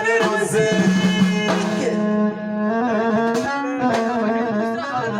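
Instrumental passage of an Amazigh folk song: a held, bending melody line on a string instrument over hand percussion.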